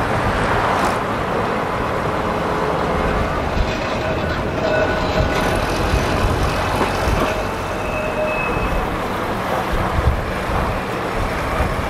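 Heritage tram running along the line: a steady rumble of rail running noise, with faint thin whining tones in the middle.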